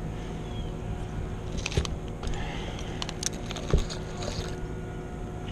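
A few sharp knocks and light metallic clinks from a tree climber's hardware and rope work, over a steady low rumble.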